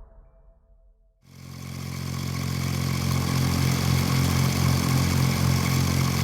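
An engine running steadily at a constant speed, fading in about a second in.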